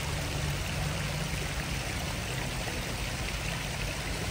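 Water splashing steadily from small fountain jets into a basin, with a low steady hum underneath.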